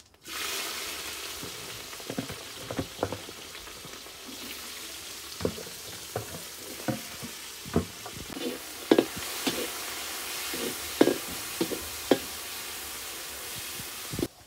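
Sliced onions sizzling in hot oil in a steel wok, the hiss starting suddenly as they go in. A spatula knocks and scrapes against the pan many times as they are stirred, and the sizzle cuts off just before the end.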